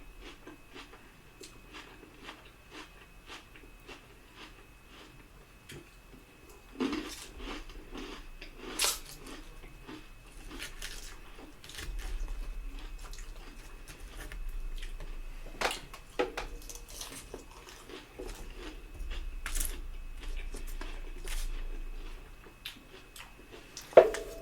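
Close-miked chewing and mouth sounds of a person eating, with irregular small clicks and a few sharper clinks of cutlery against a dish.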